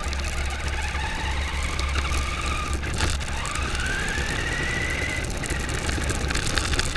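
Onboard sound of a radio-controlled New Bright Corvette driving: its electric drive motor whines, rising in pitch about three seconds in as the car speeds up. Under it run a steady rumble and rattling knocks from the car bouncing over rough tarmac.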